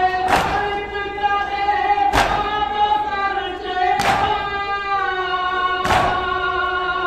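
Voices chanting a nauha together in long held notes, cut by the crowd's chest-beating (matam), all hands striking chests in unison four times, about every two seconds.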